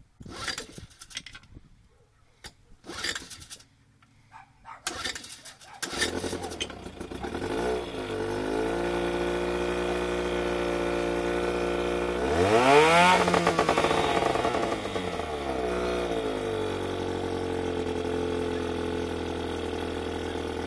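3 hp Johnson two-stroke outboard motor starting: a few short rattles, then it catches about six seconds in and runs steadily. It revs up and back down about halfway through, then settles to a steady idle, running on the fuel left in its carburetor.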